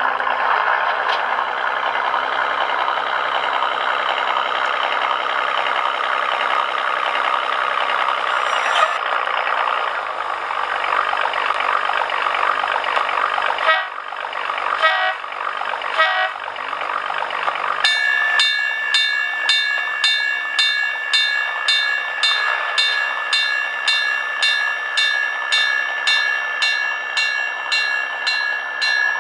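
A model railroad DCC sound decoder reproducing the Galloping Goose rail bus's gasoline engine running. More than halfway through, the bell starts ringing steadily about twice a second over the engine sound.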